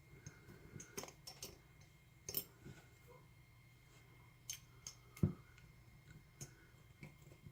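Faint, scattered metal clicks and taps of a 5/32 Allen key being tried in a large Allen screw on a padlock body; the key is just a hair too big to seat.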